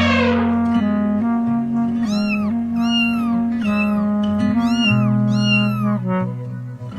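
A cat meowing several times, each call rising and then falling in pitch, from about two seconds in, over background music with steady held notes.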